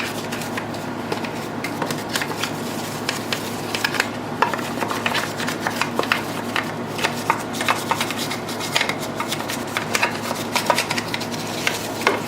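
A brush scrubbing the plastic case of a radio-control transmitter with cleaner: quick, irregular scratchy strokes back and forth, working into the crevices and ridges.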